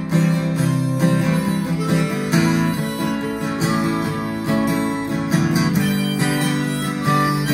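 Acoustic guitar strummed in a steady rhythm, with a harmonica playing along.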